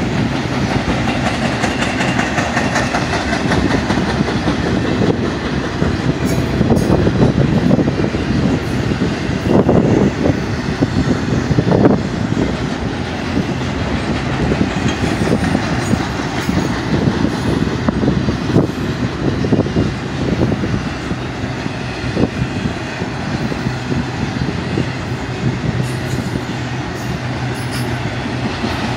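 BNSF intermodal freight train's trailer-carrying flatcars rolling past: a steady rumble with the rapid clickety-clack of steel wheels over the rail joints.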